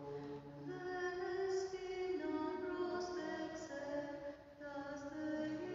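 Unaccompanied Orthodox hymn singing in a sustained chant style: long held notes moving in melodic steps, with a short break for breath about four and a half seconds in.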